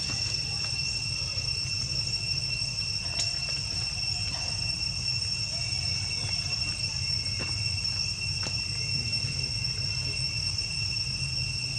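Steady, high-pitched insect drone holding one unbroken tone, over a low rumble, with a few faint clicks.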